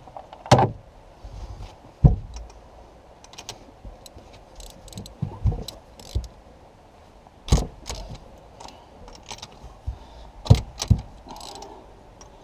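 Metal hand tools clinking and knocking irregularly on a small block Chevy engine as its spark plugs are worked loose with a wrench.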